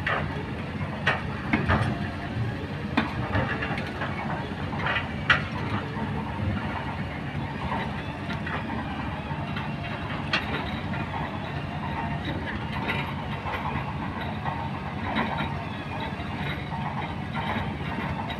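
Kobelco hydraulic excavator's diesel engine running steadily as it works, with scattered sharp knocks and clacks: several in the first six seconds, the loudest about five seconds in, and another about ten seconds in.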